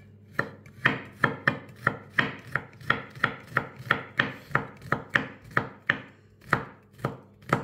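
Knife chopping garlic on a board in steady, even strokes, about three a second, starting about half a second in.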